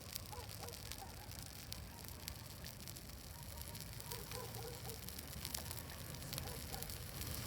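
Bonfire burning, with sharp crackles and pops now and then.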